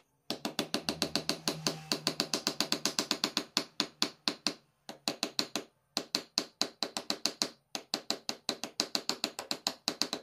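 Rapid, even ratchet-like clicking, about eight clicks a second, in several runs broken by short pauses.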